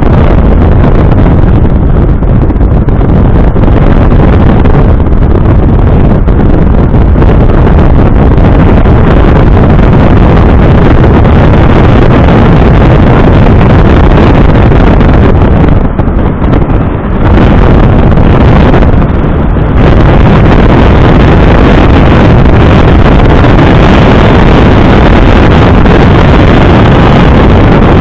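Smart Roadster on the move, heard as loud, steady wind rush buffeting the microphone over the car's engine and road noise. The sound briefly dips and goes duller about 16 seconds in.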